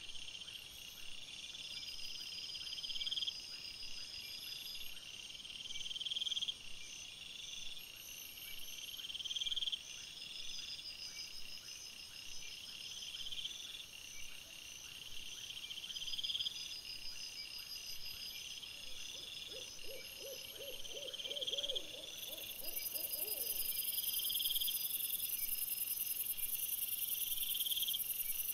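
Night insect chorus of crickets and bush crickets chirping in a steady rhythm. About two-thirds through there is a short run of rapid low pulses, and in the last few seconds a loud high hiss of insects joins in.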